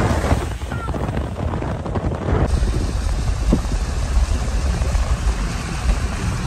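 A car driving on a rain-soaked road, heard from its open window: a steady hiss of tyres on wet tarmac under a low wind rumble on the microphone.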